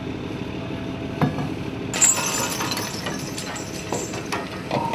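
Trawl net being hauled aboard a fishing boat over its net drum and rollers: a steady hum of the hauling machinery, then from about two seconds in a busy clatter of metallic clinks and knocks.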